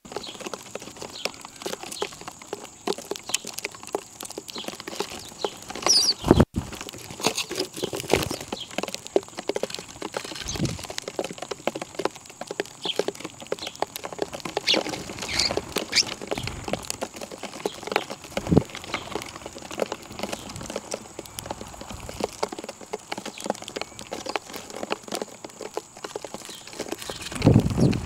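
Birds at a feeding spot: many quick taps, like beaks pecking seed on a hard surface, with a few short chirps and louder bursts about six seconds in and near the end.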